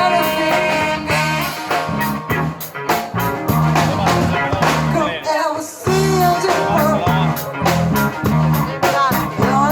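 Rock music: a singing voice over guitar, a bass line and a steady beat.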